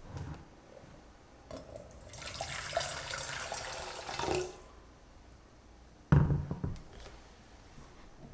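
Hot water poured from an electric kettle into a pot: a splashing pour of about two and a half seconds that swells briefly just before it stops. About six seconds in there is a single loud knock on the wooden tabletop, the loudest sound, and a lighter knock comes near the end.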